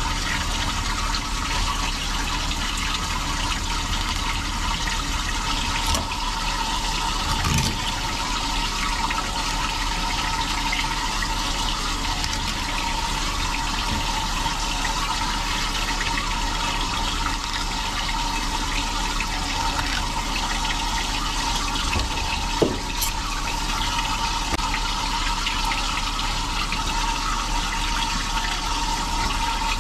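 Water running steadily, like a tap or hose pouring while fish are being cleaned, with a few brief knocks.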